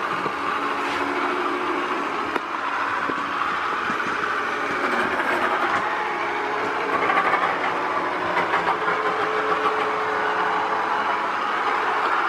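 Small electric slot-car motor in a TOMY toy boat, running on a single-cell LiPo and whirring steadily as it drives the boat's gear train. Its pitch drifts slightly up and down as the boat moves through the bath water.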